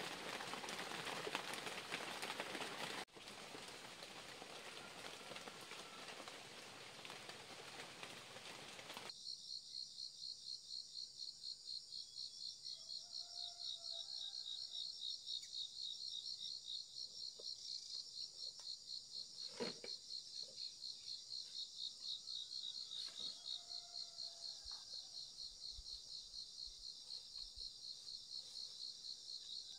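A steady hiss for the first nine seconds, then a loud insect chorus, a high, rapidly pulsing trill, with a few faint bird chirps and a single sharp click about two-thirds of the way through.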